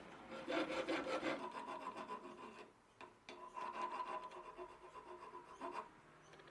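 Hand file rasping over a cast aluminium pepper grinder body in irregular strokes, loudest in the first second or so and then lighter, with short pauses.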